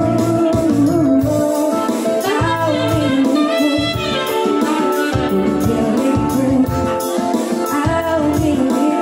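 Live band playing a slow pop song: a woman singing into a microphone over an arranger keyboard's backing, with a quick saxophone run of rising and falling notes partway through.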